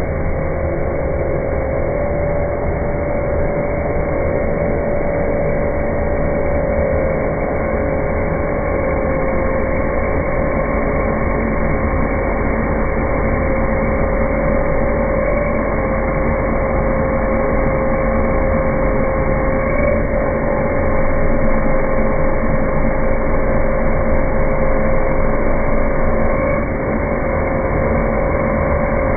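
CNC router running, a steady machine noise with a constant whining tone from the spindle, a little louder for a few seconds past the middle.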